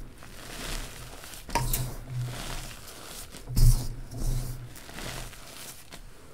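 Fingers crumbling and raking through powdery reformed gym chalk in a bowl: soft crunching and sifting in uneven bursts, with two louder bumps, about a second and a half in and again past the middle.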